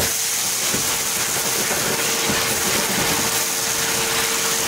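Wet/dry shop vacuum running with its hose nozzle held over a gravel-filled hole in a car's rusty floor pan: a steady motor whine and rush of air, with a few faint ticks of gravel being sucked up the hose.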